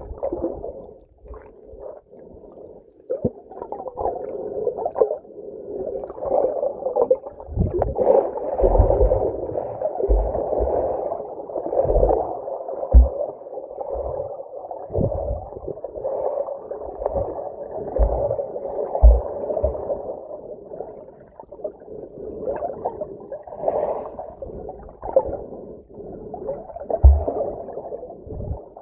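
Muffled underwater water noise from a camera held below the surface: continuous gurgling, with irregular low thumps every second or two.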